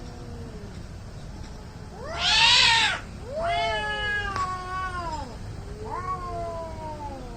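Domestic cats caterwauling in an angry standoff: a faint low yowl, then three long, rising-and-falling yowls, the loudest about two seconds in.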